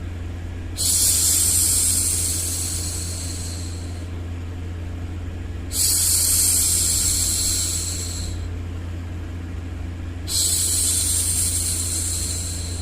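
A woman's long hushing 'shhh', repeated three times about every four and a half seconds, each one fading out, over a steady low rumbling noise bed.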